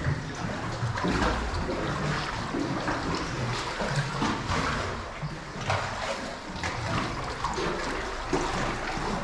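Lake Superior water sloshing and splashing against sandstone inside sea caves, irregular surges about a second apart over a low rumble.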